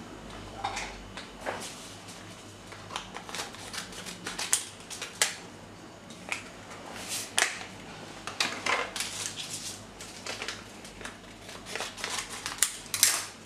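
Small paper sachets of vanilla sugar being handled and opened: irregular crinkles and sharp little clicks, with the electric hand mixer switched off.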